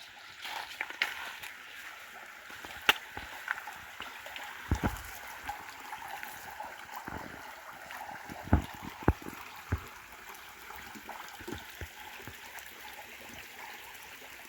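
A small stream running steadily with an even, babbling rush, with a few scattered thumps and clicks over it.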